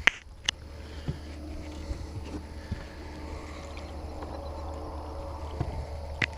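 Fishing boat on the water: a steady low hum, with two sharp knocks in the first half second and another near the end.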